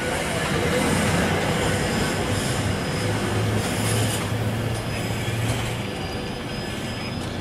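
NJ Transit Multilevel passenger coaches rolling past close by: a steady rumble of steel wheels on the rails, with a faint high squeal in the second half.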